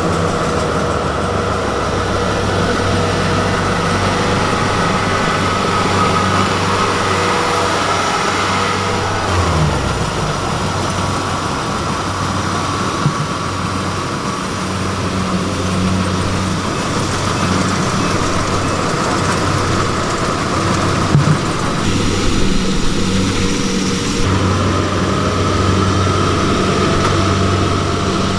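Diesel engine of a Kubota farm machine running steadily in a rice field. Its low hum weakens about ten seconds in and comes back stronger near the end.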